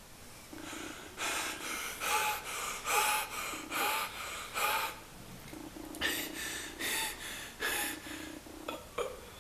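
A person's voice making a quick series of short, breathy gasping sounds, in two runs with a pause of about a second in the middle.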